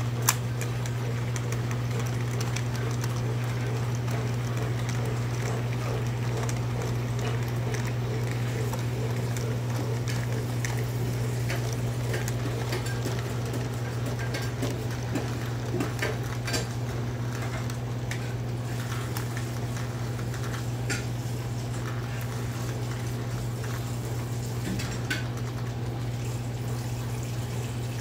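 O gauge model trains running on tubular track: a steady electric hum under a rolling, rushing rumble of wheels, with scattered short clicks.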